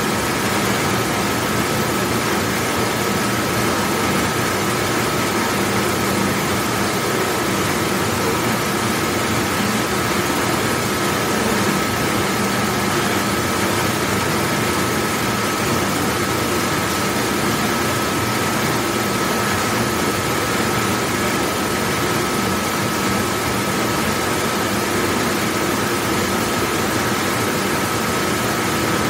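Very large commercial dishwashing machine running: a steady, even rush of machine noise with a thin, high steady tone on top, unchanging throughout.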